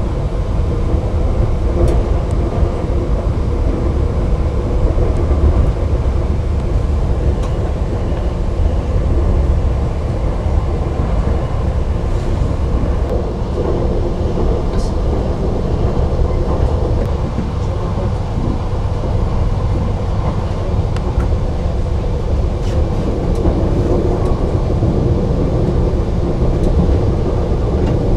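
Passenger train running at speed, heard from inside the carriage: a steady low rumble of the wheels on the track, with a few faint clicks.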